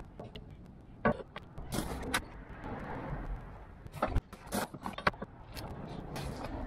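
Scattered sharp clicks, taps and clunks of a metal funnel and gloved hands being handled at a tractor engine's oil filler, over a steady background noise. The loudest knocks come about a second in and around four and five seconds in.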